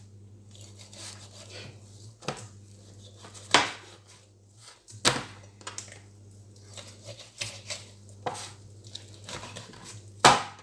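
Knife chopping through a raw whole chicken on a plastic cutting board: about six sharp chops a second or two apart, the loudest near the end, over a faint low hum.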